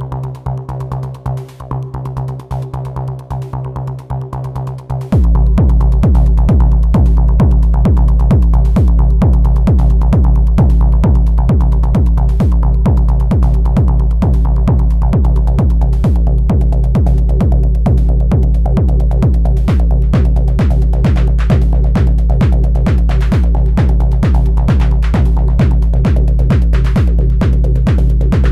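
Elektron Analog Rytm drum machine playing an improvised techno groove: a held bass tone with light hi-hat ticks, then about five seconds in a loud kick drum drops in and keeps a steady, even beat.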